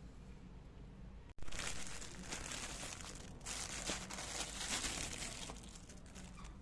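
Packaging crinkling and rustling as it is handled and opened. It starts after a sudden brief dropout a little over a second in, and is loudest in the middle.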